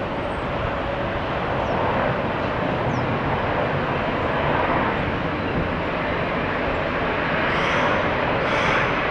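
Boeing 777 jet engines, a steady rushing roar that swells slightly near the end, with high wind buffeting the microphone underneath.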